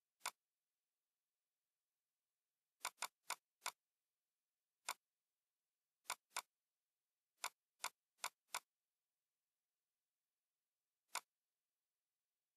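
Computer mouse clicks, about thirteen single sharp clicks at uneven spacing: some come in quick runs of two to four, with silence between them.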